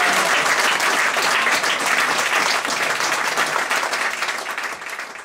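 Audience applauding after a live song, fading out near the end.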